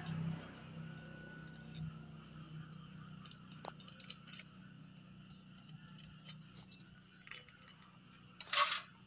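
Light metallic clinks and small rattles from clutch-cover bolts and a hand tool being handled as the bolts come out of a motorcycle's clutch cover, with a louder short clatter near the end.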